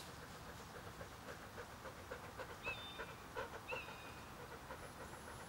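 A dog panting in a steady rhythm, about three breaths a second.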